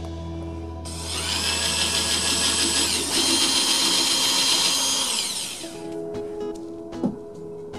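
Small high-speed power tool motor starting up with a high-pitched whine, dipping briefly in pitch as it takes load, then spinning down. Background music plays under it.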